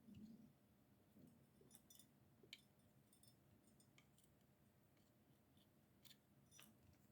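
Near silence with a few faint, scattered clicks and taps, typical of small hand tools and parts being handled during circuit-board assembly.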